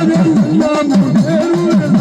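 Gujarati devotional folk music: a low drum sound swooping rapidly up and down in pitch, about four swoops a second, over steady held instrumental tones.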